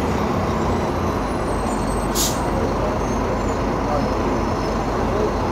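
Scania K250UB city bus running steadily with continuous engine and road rumble, and a short hiss of released compressed air about two seconds in.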